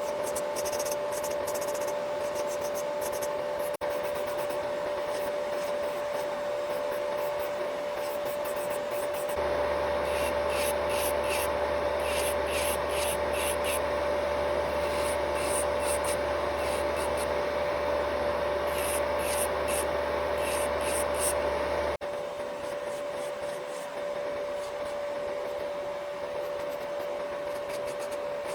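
Fingernails being filed, with repeated rasping, rubbing strokes that grow louder and busier for a stretch in the middle. Under them runs the steady hum of a small motor.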